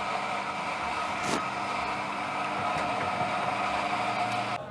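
Espresso machine pump running steadily while pulling a double espresso shot, a constant mechanical hum that cuts off suddenly near the end as the shot is stopped.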